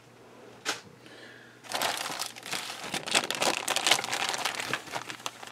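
Clear plastic bags crinkling as hands pick up and handle bagged plastic model-kit sprues. A single tap comes under a second in, then dense crinkling from about two seconds in.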